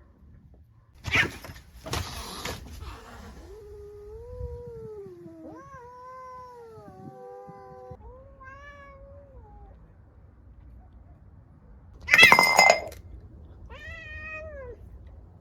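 Domestic cats in a standoff. Two short hisses come about a second apart, then a long, low, wavering yowl and a shorter call. About twelve seconds in there is a loud hiss-screech, the loudest sound, followed by one last short meow-like cry.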